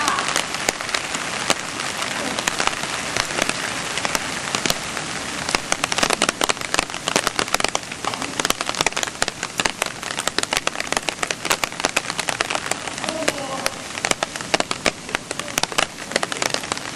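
Steady rain, with a dense patter of sharp drop hits, some of them loud.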